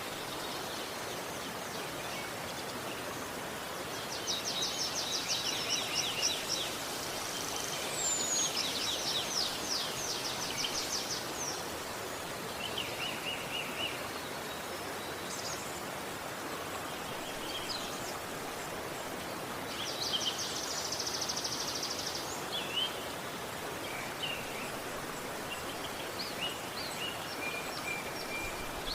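A river running with a steady rush of water, while songbirds sing fast trilled phrases over it, the longest ones about four seconds and eight seconds in, again around twenty seconds, and near the end.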